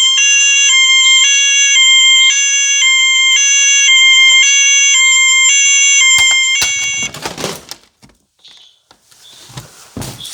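Electronic fire alarm sounding: a loud repeating electronic tone pattern that steps in pitch about twice a second. It cuts off suddenly about seven seconds in and is followed by a short burst of noise.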